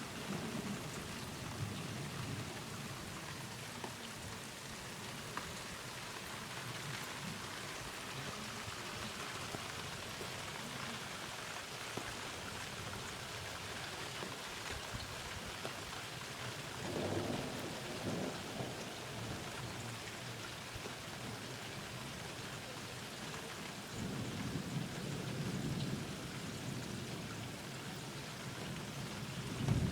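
Steady heavy rain falling, with low rumbles of thunder rolling in about halfway through and again later, and a short louder burst right at the end.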